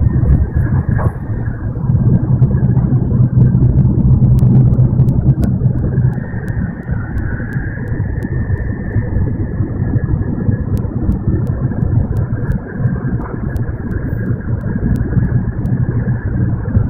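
Cabin noise of an N700 series Shinkansen bullet train running at speed: a steady low rumble with a low hum, louder for the first several seconds and then easing off a little.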